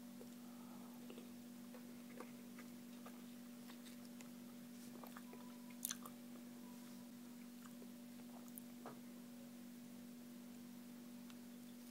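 Faint wet scraping and small clicks of a metal spoon scooping the flesh out of a halved kiwi fruit, with one sharper click about six seconds in. A steady low hum lies underneath.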